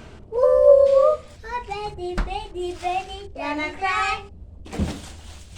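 A child singing in a small room: a long held note near the start, then shorter gliding phrases. A sharp knock comes about two seconds in and a dull thump near the end.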